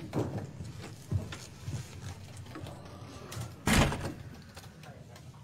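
A wooden office door pulled shut with a single solid thud about two thirds of the way through, after a few soft footsteps.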